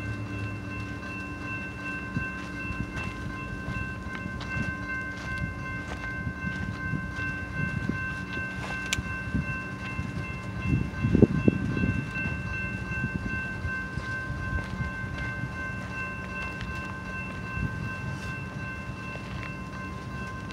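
BNSF double-stack container train rolling past slowly, just started moving again after a stop: a steady rumble of wheels and well cars with irregular clattering knocks, louder for a second or two about halfway through. A steady high ringing tone sounds over it.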